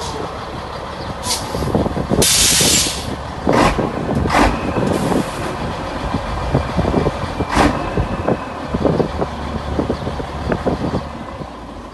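1971 Scania L110 tractor unit's 11-litre six-cylinder diesel running as the truck pulls up and stops, with a loud hiss of air brakes lasting about a second, about two seconds in, then several shorter hisses.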